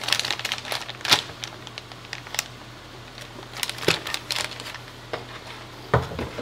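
Scattered light clicks and crinkling rustles of things being handled, over a steady low hum.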